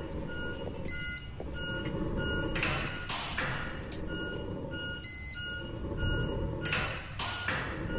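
Hospital bedside equipment: a patient monitor's short electronic beeps, two or three a second at a few fixed pitches, with a ventilator's paired whoosh twice, about every four seconds, for a patient in a coma.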